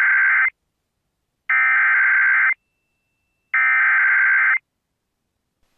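Emergency alert SAME header: digital data tones sent in bursts of about a second with a second of silence between, the tail of one burst followed by two full ones. It is the coded header that opens a severe thunderstorm warning broadcast.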